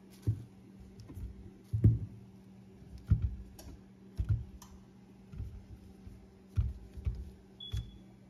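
Handling noise from a handheld camera: irregular soft thumps and light clicks over a steady low hum.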